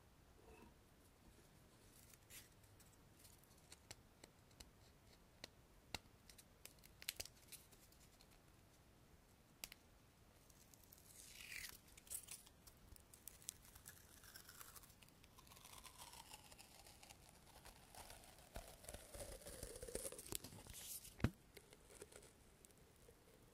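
Small desk objects handled close to the microphone. Scattered light taps and clicks come first. From about halfway there is a longer scratching, sliding sound whose pitch falls in several sweeps, and one sharp click near the end is the loudest sound.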